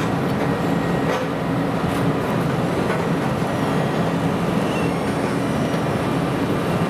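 Steady rumble of a running vehicle engine, with a few faint rattling clicks.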